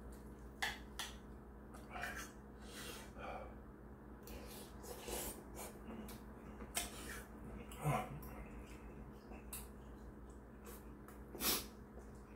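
Eating at close range: a metal spoon clinking and scraping against a ceramic rice bowl, with chewing and breathing, over a steady low hum. Several sharper clinks stand out, the loudest about eight seconds in and near the end.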